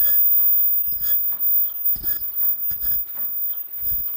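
Automatic disposable face mask machine running, with a rhythmic mechanical clack about once a second as its stations cycle, each stroke a dull knock with a metallic clink.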